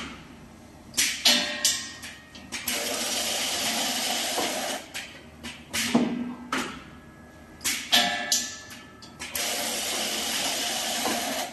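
Automatic diamond saw blade laser welding machine working through its cycle: sharp clicks and clunks of its mechanism, and twice a steady hiss lasting about two seconds.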